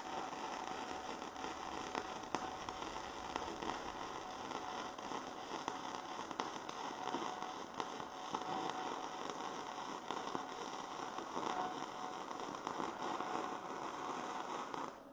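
Electric arc welding on steel bar stock: a steady, crackling, spitting arc with a faint steady hum under it, which stops abruptly near the end.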